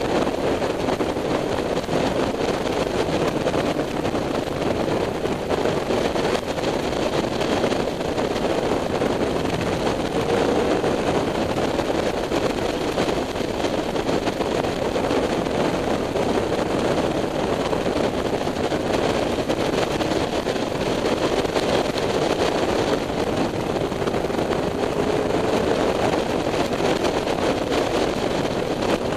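Steady wind noise over the microphone of a Honda CBR600F3 on the move at road speed, with its inline-four engine running underneath and its pitch rising and falling slightly a couple of times.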